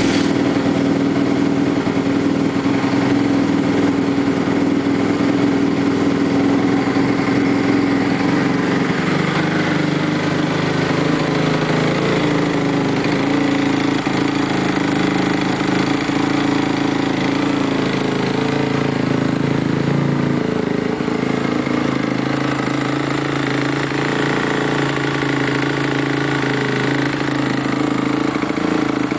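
2011 Honda CRF250R's single-cylinder four-stroke engine catching on a cold kick-start and running at a steady idle, through an FMF titanium exhaust. The idle note shifts slightly a couple of times.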